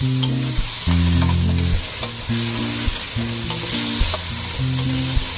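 Pork trotter pieces sizzling in a hot wok in a soy-sauce glaze, stirred and scraped with a wooden spatula. Under it runs a background music track with steady low notes and a faint regular beat.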